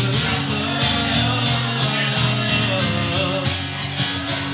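A man singing over an acoustic guitar strummed in a steady rhythm, a live solo performance of a country song.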